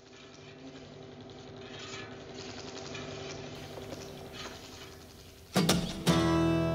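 Faint, steady droning tones that slowly swell, then near the end an acoustic guitar strummed hard: two sharp chord strokes that ring on.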